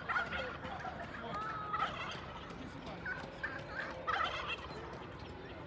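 Farm poultry calling in several short, warbling bursts, about four clusters spread over a few seconds.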